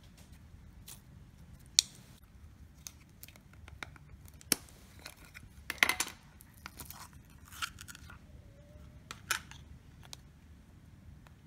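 Clear, jelly-like putty being squeezed and poked between the fingers, with scattered sharp clicks and small pops; a cluster of louder clicks and crackles about halfway as a small plastic tub of putty is handled.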